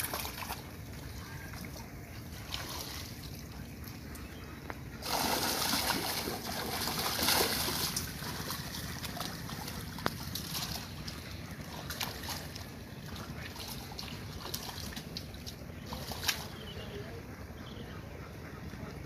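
Pond water splashing and trickling, with small splashes and drips throughout. A louder rush of splashing starts suddenly about five seconds in and lasts a few seconds. A steady low rumble runs underneath.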